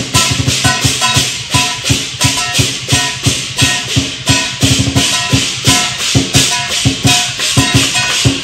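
Lion dance percussion: a large drum beaten in a fast, driving rhythm together with crashing hand cymbals, with ringing metallic tones from a gong.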